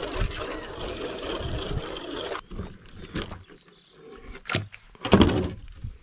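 Water spraying from a garden hose nozzle onto a plastic folding table, a steady hiss that stops abruptly about two and a half seconds in. It is followed by a few short knocks and handling noises.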